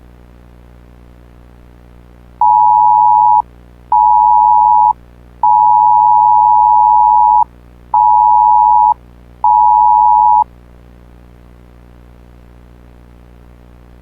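Electronic beep tone at one steady pitch, sounded five times: two one-second beeps, a two-second beep, then two more one-second beeps. A faint steady hum lies underneath.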